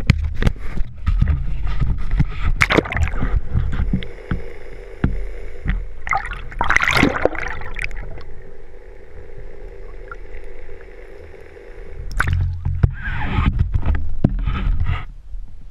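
Water splashing and sloshing at a boat, in several loud surges, with knocks and a steady low rumble underneath.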